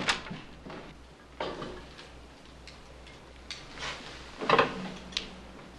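A few scattered light knocks and clicks, the loudest about four and a half seconds in, over a faint low hum.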